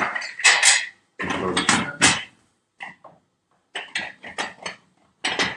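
Pressure cooker lid clattering and clinking against the metal pot as it is fitted and locked shut, in several short bursts of metallic knocks.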